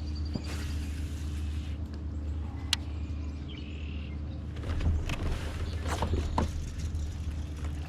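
A steady low hum, with a few sharp clicks and a brief cluster of knocks and rustles past the middle.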